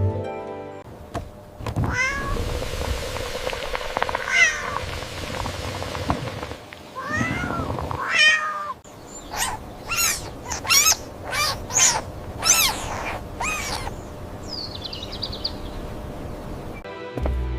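A cat meowing: a few drawn-out meows, then a quick run of about eight short meows, and a faint high mew near the end.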